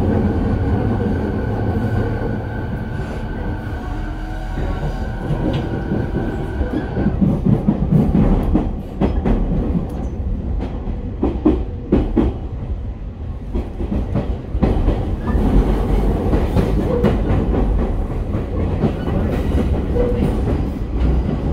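Running sound inside a motor car of a JR East E217 series electric train. A steady high whine from the traction equipment runs over the rumble for about the first seven seconds and then stops, after which the wheels clack repeatedly over rail joints.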